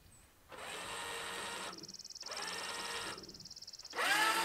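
Motor-driven truck-camper jacks running in short runs of about a second with brief pauses, the pitch rising as the motor spins up at each start, lowering the camper onto the truck bed.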